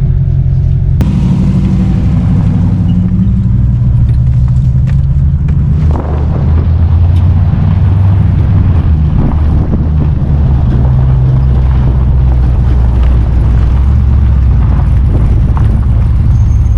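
A vehicle's engine running under way, a loud low drone whose pitch steps up or down a few times as engine speed changes.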